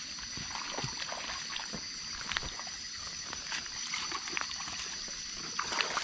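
Crickets and other night insects trilling in a steady high band, over faint trickling water, with scattered light clicks and small splashes on a wet stream bank.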